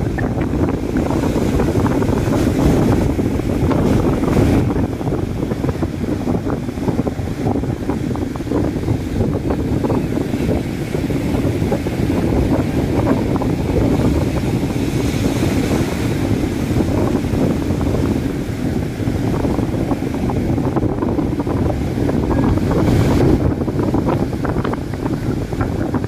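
Strong wind buffeting the microphone in a steady low rumble, with waves breaking on the shore underneath.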